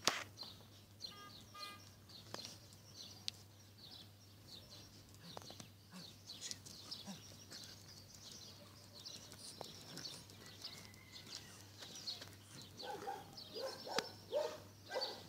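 Faint outdoor birdsong: many short, high chirps from small birds, with scattered light clicks. Near the end comes a few seconds of lower, rougher sound.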